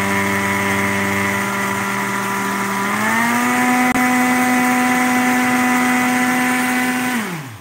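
Personal blender's motor running steadily as it grinds dry rolled oats and bulgur wheat into a finer meal. Its pitch steps up a little about three seconds in, then the motor winds down and stops near the end.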